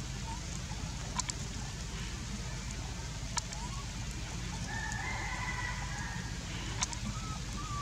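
A rooster crowing once, a long call about five seconds in. A few sharp clicks and a steady low hum sit under it.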